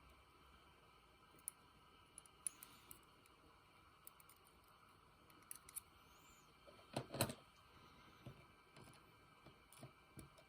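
Faint, scattered clicks and light taps of small metal parts as the pin springs are worked back into the chambers of an American 1100 padlock, with a louder clatter about seven seconds in.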